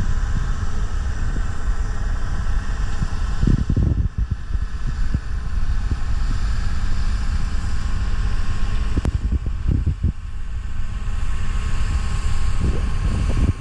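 Wind buffeting the microphone in gusts, over the steady distant drone of a White 100 tractor engine pulling a cultimulcher.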